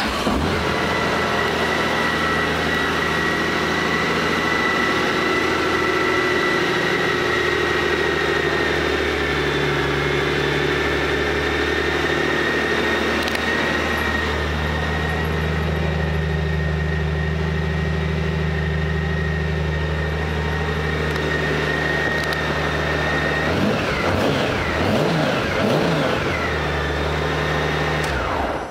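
2003 Honda GL1800 Gold Wing's flat-six engine idling steadily just after start-up. Near the end it is revved in a few quick blips, then settles back to idle.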